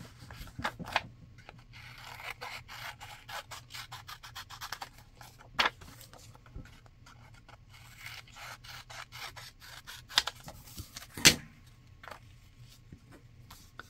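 Small scissors snipping through magazine paper, with the paper rustling and rubbing in the hands. A few sharp clicks stand out, the loudest about two seconds before the end.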